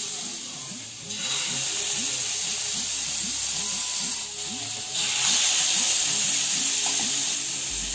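Marinated fish pieces sizzling in hot mustard oil in a pan. The sizzle steps up about a second in and again about five seconds in, as more pieces are laid in.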